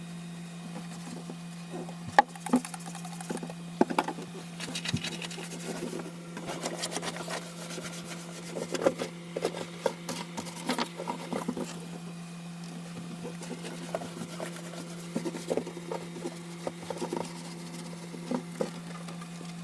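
Irregular clicks, taps and rustling of hands working on a car's interior trim during a wipe-down, over a steady low hum. The loudest is a sharp click about two seconds in.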